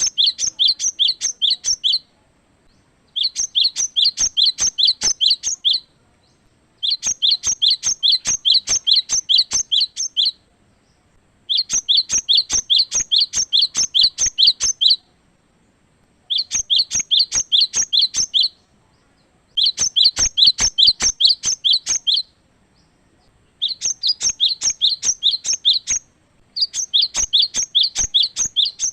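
Cinereous tit (gelatik batu) singing: bursts of fast, evenly repeated high two-part notes, each burst lasting two to three seconds, with short pauses between, about eight bursts in all.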